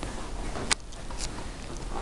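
A mobile phone being handled and tapped while dialing: two short sharp clicks, one just under a second in and another about half a second later.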